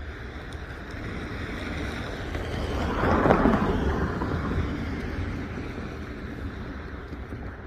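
A road vehicle driving past: a noise that swells to its loudest about three seconds in and then slowly fades, over a steady low rumble.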